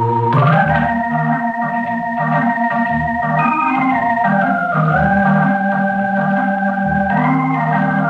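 Organ music playing a musical bridge: slow, held chords that shift to new notes every second or two.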